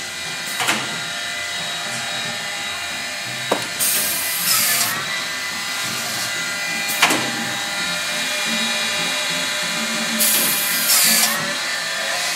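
Lobo dual 45-degree cut-off saw with automatic feeder running with a steady motor hum and sharp clicks from the feed mechanism. Two bursts of cutting noise, each about a second long, come about six seconds apart as the machine cycles through cuts.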